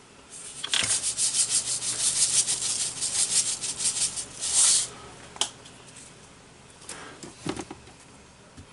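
Salt being dispensed into the pot: a rapid, gritty rasping run of strokes lasting about four seconds and ending in a louder burst, followed by a few scattered clicks.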